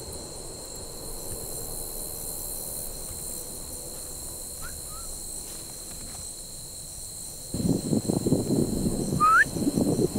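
Steady high trilling chorus of night insects such as crickets. About seven and a half seconds in, loud rustling and buffeting noise comes in, and a short rising whistle-like chirp sounds near the end.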